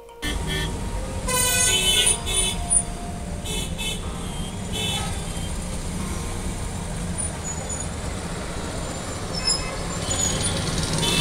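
Steady road and engine rumble of a moving car heard from inside the cabin, with vehicle horns tooting several short times in the first five seconds.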